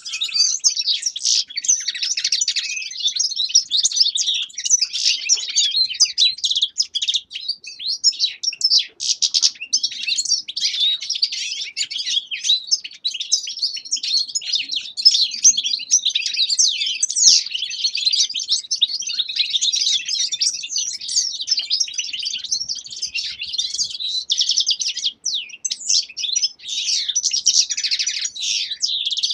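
Several caged finches, European goldfinches and Eurasian siskins among them, twittering and singing over one another without a break: a dense, high chatter.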